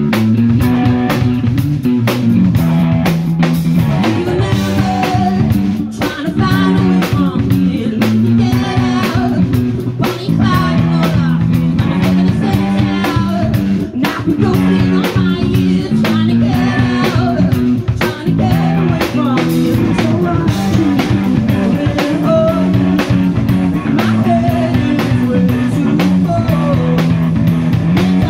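Live rock band playing: a singer's voice over electric guitar, bass guitar and a drum kit keeping a steady beat.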